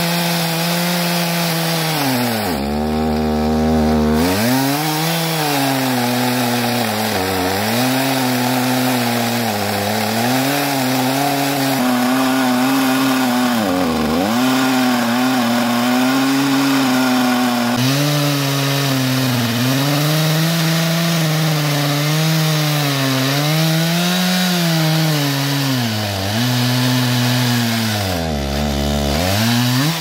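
Stihl MS361 chainsaw with a 28-inch bar running at full throttle while it cuts deep into a large crotch log. Its engine pitch sags and recovers again and again as the chain is loaded down in the cut, with a deeper dip about three seconds in.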